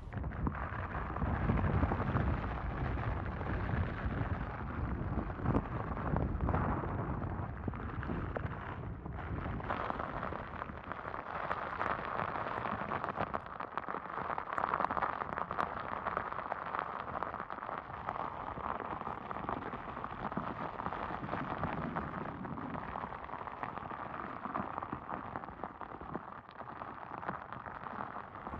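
Hurricane-force wind blowing across the microphone: a heavy, rumbling buffeting for the first several seconds, then a steady rushing hiss with scattered crackles.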